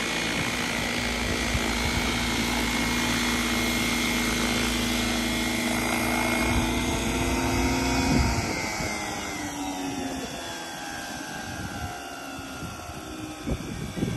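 Radio-controlled T-Rex 600 helicopter in an MD500 scale body: a steady rotor and drive whine while it hovers. About eight seconds in it sets down, and the pitch falls away as the rotor spools down.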